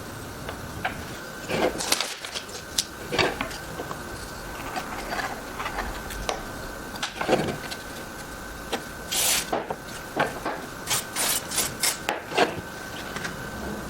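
Irregular short scrapes, rubs and light knocks of hands working on a wooden piece, with a faint steady high tone underneath.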